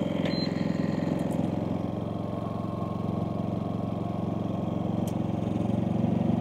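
Predator 5000 inverter generator's engine running steadily at its low economy-mode speed. It does not ramp up as a roughly 1500-watt electric heater comes on as a load.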